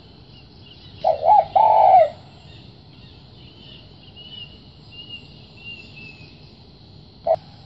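Spotted dove cooing: a low phrase of two short coos and one longer drawn-out coo about a second in, then a single short coo near the end. Faint high chirps of a smaller bird come in between.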